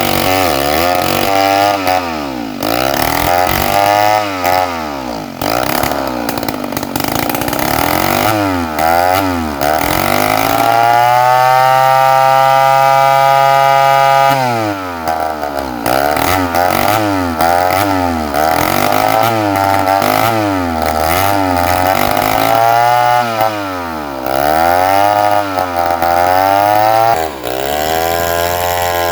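Stihl 070 two-stroke chainsaw ripping through trembesi (rain tree) wood. Its engine pitch repeatedly drops and climbs back as the chain bites into the cut. About ten seconds in, it holds steady at high revs for about four seconds.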